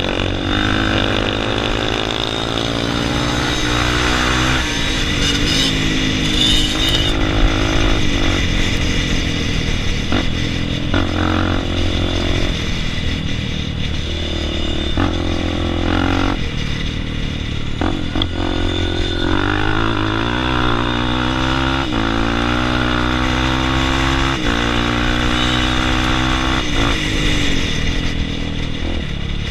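Dirt bike engines revving hard, their pitch climbing and dropping again and again as they shift up through the gears, in a drag race between a Yamaha DT 200 and a Honda Tornado 293.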